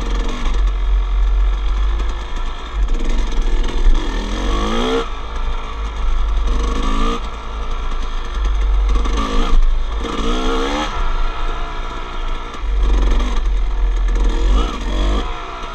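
Two-stroke 250 dirt bike engine revving up and easing off again and again while riding a trail, about five rising surges, over a steady low rumble.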